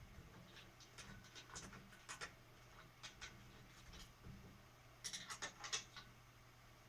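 Faint scattered clicks and light scrapes of bike hardware being handled while bolts are lined up, with a cluster of them about five seconds in, over a low steady hum.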